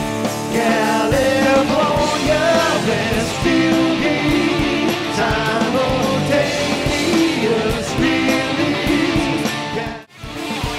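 Rock band playing with a singing voice, electric guitar and drums. The music drops out for a moment near the end, then starts again.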